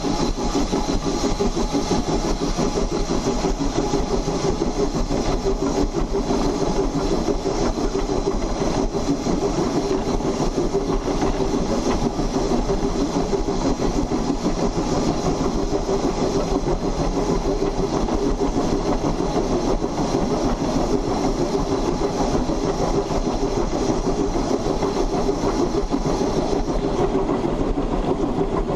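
Ex-Hammond Lumber 2-8-2 saddle-tank steam locomotive running under way, heard right beside its driving wheels: a steady, dense clatter of wheels, side rods and running gear on the rails.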